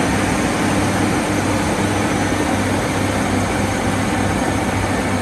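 Komatsu D275AX crawler bulldozer's diesel engine running steadily under load as its blade pushes earth, a constant low drone.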